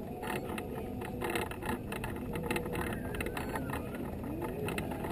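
Small motorized vehicle rolling along a paved path: a steady low rumble with fast rattling ticks, about five a second.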